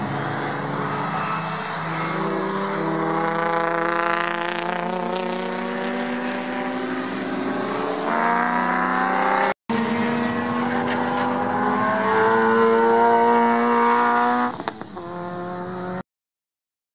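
Race car engines accelerating hard through the corners of a road course. The engine note climbs steadily and drops back at the gear changes. The sound breaks off briefly about halfway through and stops suddenly near the end.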